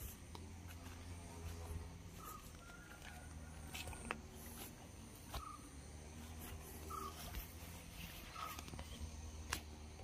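Walking footsteps and scattered clicks over a steady low hum, while a short call, most likely a bird's, comes again every second or two.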